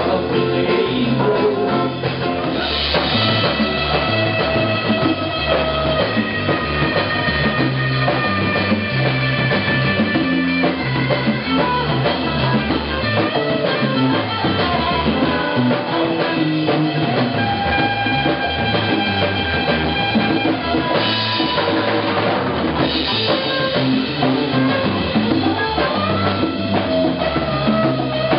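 Live band music with no singing: drum kit and congas play a driving rhythm under bass guitar, and a lead instrument holds long sustained notes.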